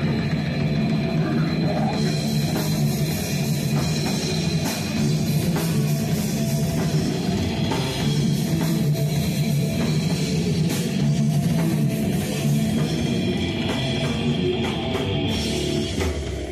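Death metal band playing live: heavily distorted guitars and bass with drum kit and cymbal crashes. The music drops off just before the end as the song finishes.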